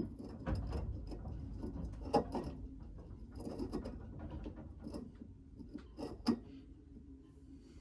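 Hands refitting the parts of a boat's sea strainer: scattered small clicks and knocks as the strainer basket and its sleeve and tube are worked back into place, loudest about two seconds in and again about six seconds in.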